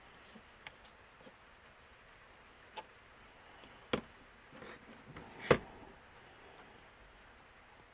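A few light clicks and knocks from small parts being handled on a work surface, the loudest about five and a half seconds in.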